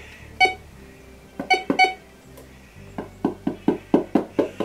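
GTX 4030 metal detector giving a few short electronic beeps, then a quick run of taps, about five a second, as it is knocked on to test it.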